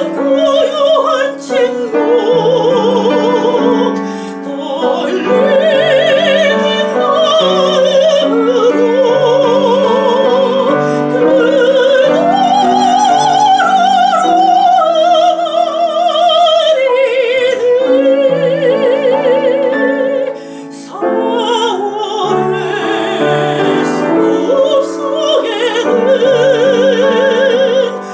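Soprano singing a Korean art song in classical style with wide vibrato, accompanied by piano. The voice breaks off briefly about four seconds in and again about twenty seconds in, while the piano carries on.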